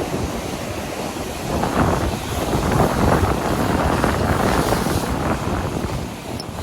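Sea swell surging and breaking against the rocks, mixed with wind buffeting the microphone. The surge builds about two seconds in and eases off near the end.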